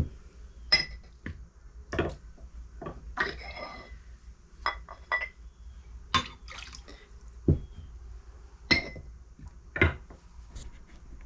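Butter crock being handled: about a dozen irregular clinks and knocks of the crock and its lid, some ringing briefly, as a little water is tipped out of it, with a short splash and some dripping.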